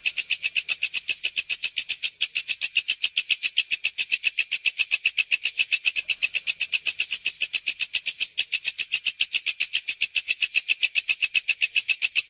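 Walang kecek, a bush cricket (katydid), calling: a fast, even, high-pitched train of chirps, roughly eight a second and unbroken.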